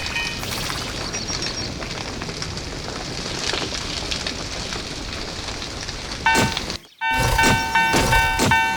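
A train passing: a steady rushing rumble with faint clatter. About six seconds in it gives way to a rhythmic, pitched ringing at two to three strokes a second, which breaks off for a moment and then carries on.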